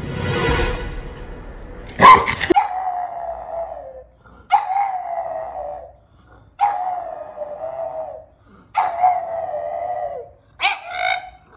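A French bulldog howling: four long howls of about a second and a half each, each sliding down in pitch, then shorter, choppier ones near the end. Before that, for about two seconds, there is a rough rasping noise that stops with a loud burst.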